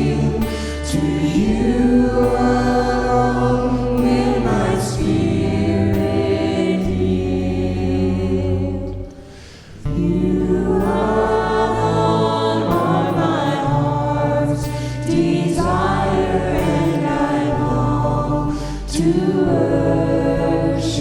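Worship music: voices singing a slow song together over long held low chords, with a brief drop-out about nine seconds in before the music comes back.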